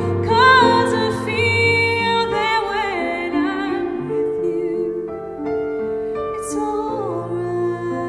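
A woman singing a melody into a microphone, with vibrato on the held notes, over soft sustained instrumental accompaniment.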